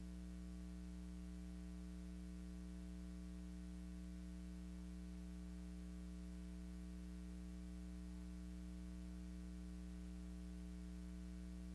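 Steady electrical hum with a faint hiss and nothing else: the noise floor of a silent film's empty soundtrack.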